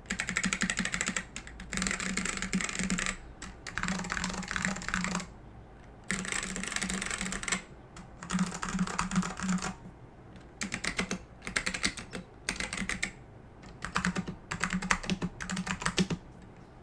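Fast typing on vintage mechanical keyboards with tactile Alps switches, keys clacking as they bottom out. The typing comes in short bursts of a second or two, each a quick run of clicks, with brief pauses between them as the typing moves from board to board.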